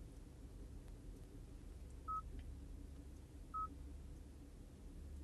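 Two short, high beeps from the Hyundai Verna's touchscreen infotainment system as options are tapped, the first about two seconds in and the second a second and a half later, over a low steady hum.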